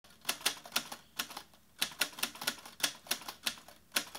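Rapid irregular clicks like typewriter keystrokes, about three or four a second with short gaps.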